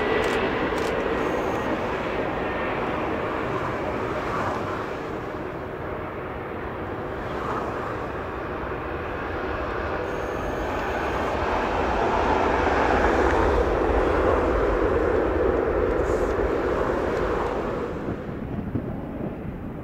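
Four turbofan engines of a Boeing 747-400 freighter at takeoff power: a continuous rushing jet drone with a strong low hum. It swells about two-thirds of the way through, then falls off sharply near the end.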